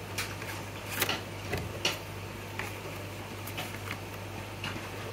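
Scattered light clicks and taps, about eight of them irregularly spaced, as a paper instruction card is handled and tucked into the lid of a hard plastic test-kit carrying case, over a steady low hum.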